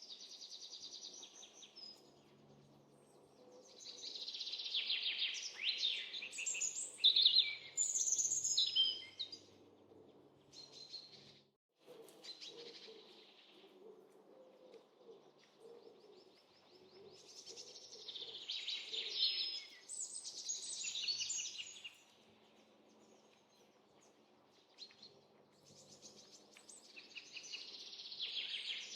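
Small songbirds chirping and singing in bouts of quick, high trills and twitters lasting a few seconds each, with quieter gaps between.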